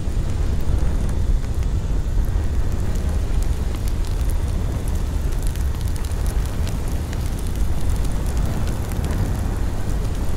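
Steady low rumbling noise, strongest in the deep bass, with faint scattered clicks throughout.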